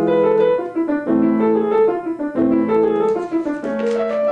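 Piano passage: a low chord is struck about every second and a quarter under a moving upper melody line.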